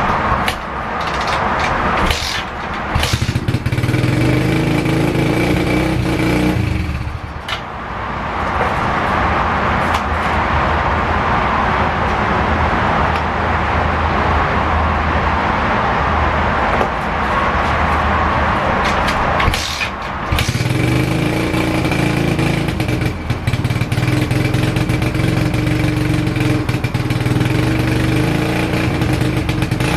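Kawasaki KLX110's small four-stroke single-cylinder engine running on its first start after a fresh head. The revs rise and fall, with a drop about seven seconds in and another about twenty seconds in.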